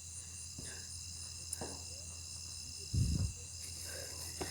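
Crickets chirping steadily in the night, with a single low thump about three seconds in.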